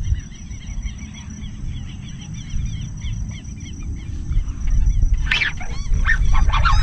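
A run of short, repeated chirping animal calls, a few each second, over a low steady rumble. About five seconds in, louder calls join.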